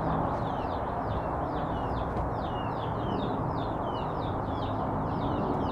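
A small bird chirping, a quick, even run of short falling chirps at about four a second, over a steady background hiss.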